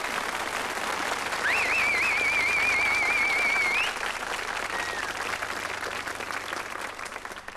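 Studio audience applauding, with one person whistling a long, wavering note over the clapping for about two seconds; the applause dies away near the end.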